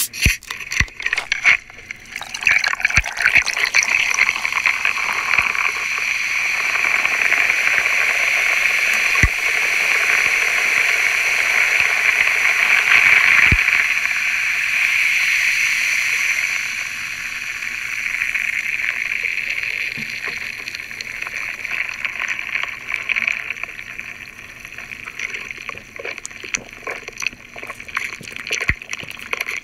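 A plastic bottle of Coca-Cola is twisted open, then poured into a large glass mug. The pouring and fizzing are loud for about fifteen seconds, then settle into a softer fizz, with gulps of cola near the end.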